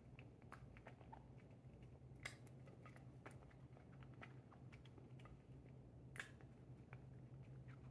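British shorthair munchkin cat eating, heard as faint, irregular clicks and crunches of chewing, with two sharper ones about two and six seconds in.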